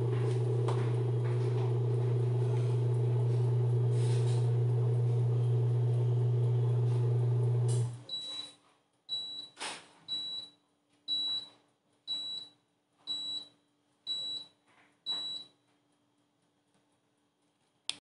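Maximus MAX-002J tabletop dishwasher running with a steady low hum in the last minute of its cycle, stopping about eight seconds in. Then its end-of-cycle alarm beeps about once a second, eight times, signalling that the wash program has finished.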